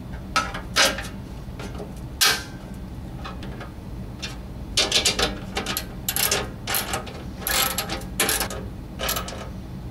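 Socket wrench ratcheting in short runs of clicks as bolts are tightened to fasten a new scraper blade to a snowblower's metal auger housing, with a few single metal clinks early on from bolts being fitted by hand.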